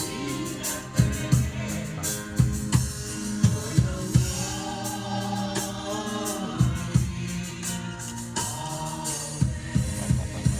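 Live gospel praise-and-worship music: a drum kit with irregular kick and snare hits under held instrumental chords, with singing.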